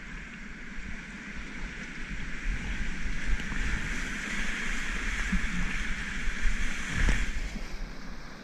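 Whitewater rapids rushing and churning around a kayak as it paddles into the waves, the rush growing louder over the first few seconds.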